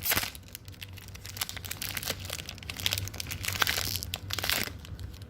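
Crinkling and rustling of a foil Pokémon card booster pack wrapper and cards being handled, in uneven bursts with a sharper burst right at the start.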